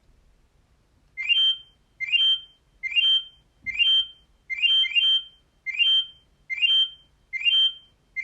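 Alcatel OT 735 mobile phone playing one of its built-in ringtones. A short, rising electronic chirp repeats about every 0.8 seconds, starting about a second in, with one chirp doubled near the middle.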